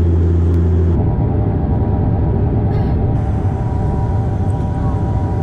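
Cabin noise inside a turboprop airliner: a steady engine and propeller drone with a held higher tone over a low rumble. It changes character about a second in, as the aircraft descends on approach with its landing gear down.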